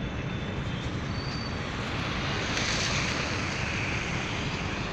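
Steady roadside traffic noise with wind on the microphone, and a swell of tyre hiss on the wet road about halfway through as a car passes close by.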